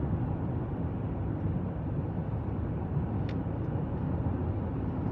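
Steady low outdoor rumble, with one brief faint click about three seconds in.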